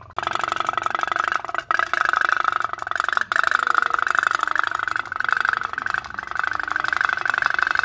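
Candle-powered tin pop-pop boat (putt-putt toy steam boat) running on water: a fast, steady putt-putt pulse that starts abruptly and drops out briefly twice, at about two and three seconds in.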